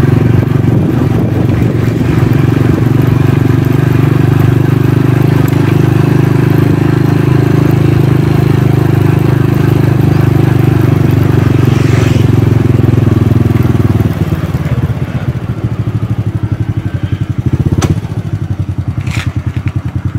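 Motorcycle engine running steadily under way, then about fourteen seconds in dropping to an evenly pulsing idle as the bike slows and stops. A few sharp clicks sound near the end.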